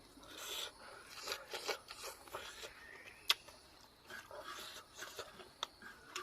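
A person eating close to the microphone: soft chewing and mouth noises with a few sharp clicks, the loudest about three seconds in.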